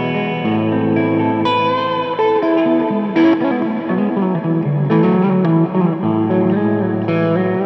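Solo electric guitar, a single-cutaway solid-body played through a small tube combo amp with effects pedals, improvising chords and melodic licks. Notes ring over one another, with a few sharply plucked high notes standing out.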